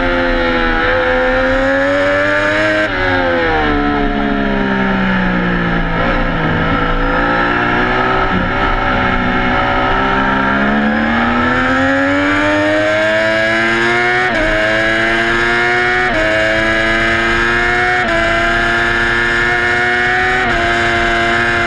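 Onboard sound of a sport motorcycle's engine at race pace. It winds down sharply about three seconds in as the bike brakes and downshifts for a corner, stays low for several seconds, then climbs hard, with four quick upshifts about two seconds apart as it accelerates onto the straight.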